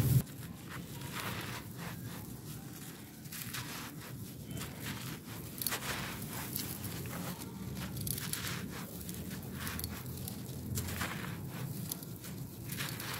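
Hands crushing and crumbling dry, dusty clumps of packed sand, a continuous run of gritty crunches and crackles as the clumps break and the sand pours away.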